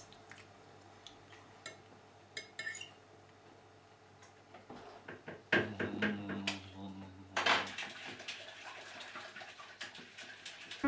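A metal fork clinking and scraping on a ceramic dinner plate as someone eats. There are a few light clicks at first, then it gets busier and louder from about halfway.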